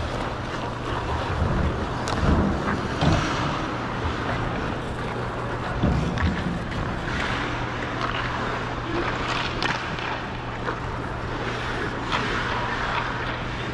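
Ice skate blades gliding and scraping on the rink surface, the hiss swelling and fading with each stride, with a few sharp clicks and a steady low hum underneath.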